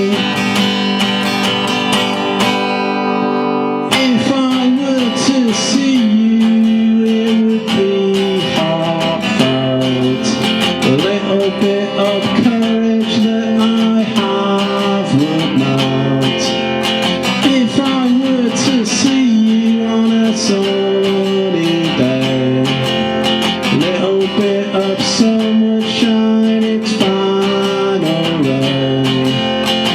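Acoustic guitar playing a song: a chord ringing out for about four seconds, then a steady strummed chord pattern.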